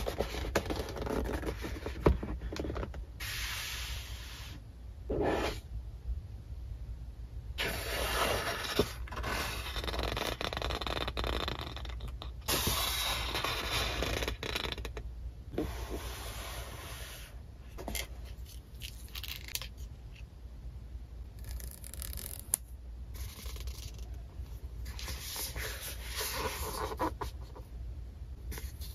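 Sheets of paper and a thick paper-covered notebook rustling and sliding under hands, in uneven stretches of a second or a few seconds with short pauses between, over a steady low hum.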